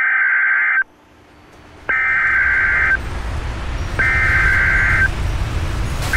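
Emergency Alert System header: about one-second bursts of warbling digital data tones, one roughly every two seconds, with a fourth just starting at the end. A low rumbling noise comes in under them after the first burst.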